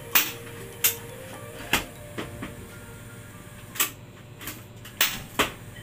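Sharp clicks from the knobs of a two-burner LPG gas stove as they are turned to spark the igniter, about nine at irregular spacing.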